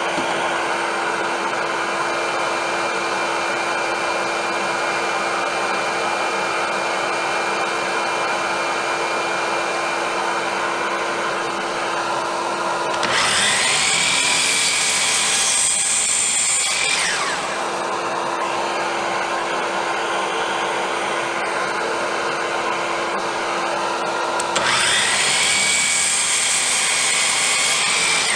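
Hercules compound miter saw's motor run twice, each time for about four seconds: a high whine that spins up quickly, holds steady, then winds down. A steady machine drone runs underneath throughout.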